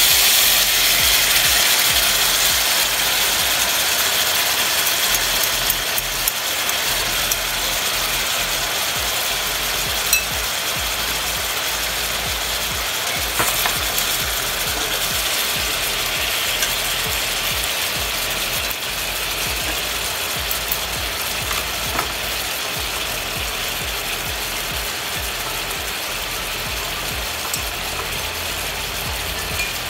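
Soy sauce and sugar sizzling in a hot cast-iron skillet of tofu and luncheon meat cubes, loudest just after the sauce hits the pan and easing off gradually as it cooks down. A few light clicks of chopsticks against the pan.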